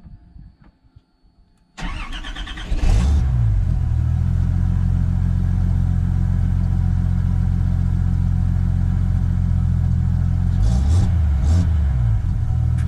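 Car engine cranked and catching about two seconds in, then idling steadily with a deep, even note until it cuts off abruptly at the end.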